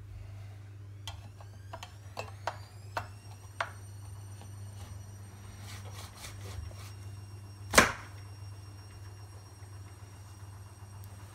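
A series of light clicks and taps, then one sharp, much louder knock a little past the middle. Under them run a steady low hum and a high whine that rises over the first few seconds and then holds steady.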